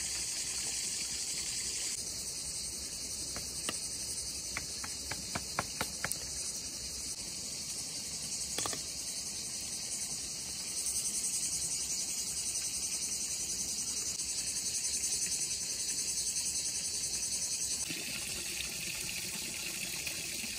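Dense, steady high-pitched insect chorus. A quick run of sharp clicks comes a few seconds in, with one more near the middle. Near the end the rush of running water joins in.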